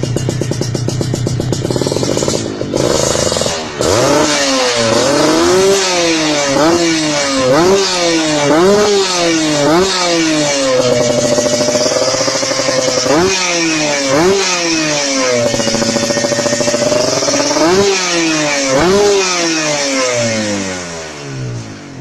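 Kawasaki Ninja 150 two-stroke single-cylinder engine breathing through a chrome Speed Corner racing muffler with a crisp exhaust note. It idles at first, then is blipped sharply over and over, about once a second. The revs are held up twice for a couple of seconds each, before more blips.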